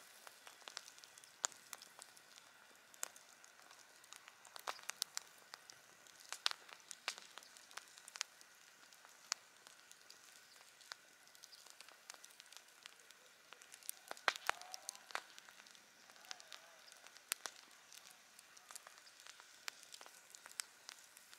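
Wood campfire crackling, with irregular sharp pops and a thicker cluster of crackles about two-thirds of the way through, over a faint steady hiss.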